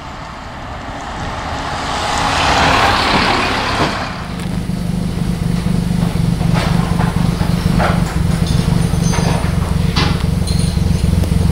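Mercedes-Benz recovery truck driving past, its engine and tyre noise swelling to a peak about three seconds in and then fading. After that, a steady low rumble with a few scattered knocks.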